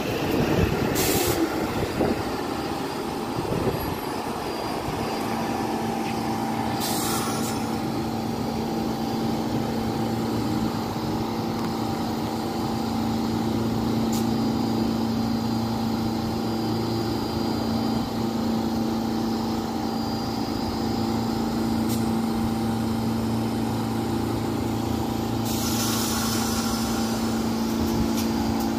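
R46 subway train standing at the platform, giving a steady hum from its onboard equipment. Short hisses of air from the brakes come about one second and seven seconds in, and a longer hiss comes near the end.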